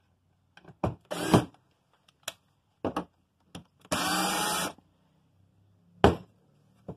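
Black+Decker cordless drill running in two short bursts, the second a little under a second long with a rising whine, as screws are backed out of a wooden board. Light clicks and knocks of handling come between the bursts, with one sharp, loud knock about six seconds in as the drill is set down on the bench.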